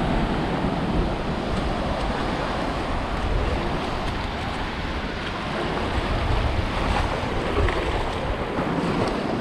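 Sea surf washing in over a shallow, flat beach, with wind buffeting the microphone in a steady low rumble.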